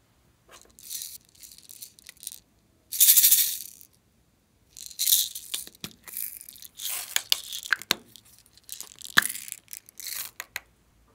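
Small plastic beads rattling as they are shaken and poured out of plastic cups into a glass bowl, in several short bursts, the loudest about three seconds in. Sharp clicks are scattered between the bursts.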